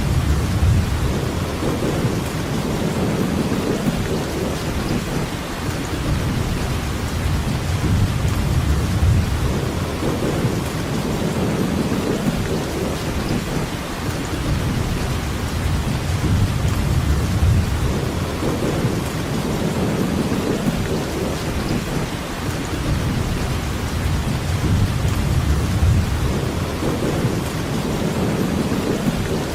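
Steady heavy rainfall hiss, with a low rumble that swells and fades every few seconds.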